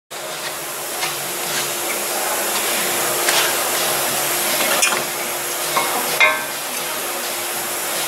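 New front wheel hub bearing being fitted onto the steering knuckle: a few light metallic clicks, and a louder clink with a short ring about six seconds in, over a steady hiss with a faint hum.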